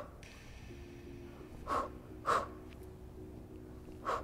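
A woman's sharp breaths out through the mouth with the effort of an ab exercise: a quick pair about two seconds in and another near the end.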